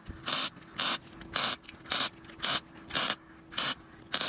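Hand clamps being tightened to draw an iron frame back and tension expanded-metal mesh: an even rhythm of short scraping strokes, about two a second.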